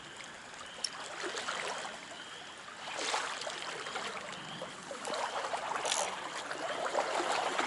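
Trout stream water running and splashing, swelling louder about three seconds in and again near the end.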